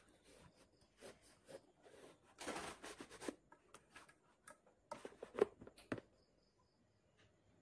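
Rolls of wallpaper being shifted and pushed into a holder made from a cardboard box: rustling paper and light knocks of the rolls against the box, in two louder bursts, stopping about six seconds in.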